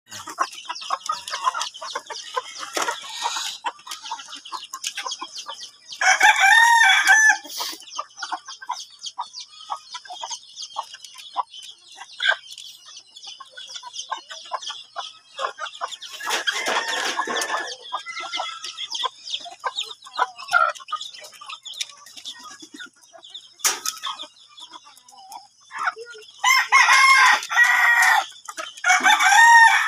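A backyard flock of chickens clucking on and off, with a rooster crowing loudly three times: about six seconds in and twice near the end.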